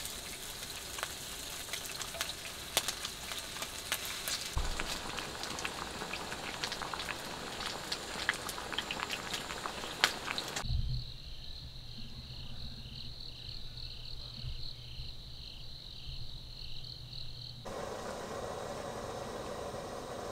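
Pork belly sizzling as it grills, a dense crackle with many sharp spits of fat. About halfway through it cuts off suddenly, giving way to a regular high chirping about twice a second over a low hum.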